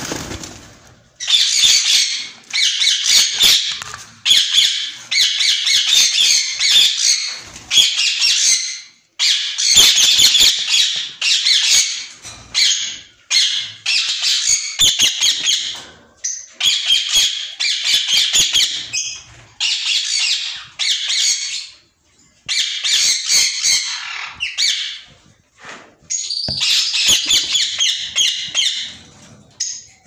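White Indian ringneck parakeets squawking in repeated harsh bursts of one to two seconds, with short pauses between them.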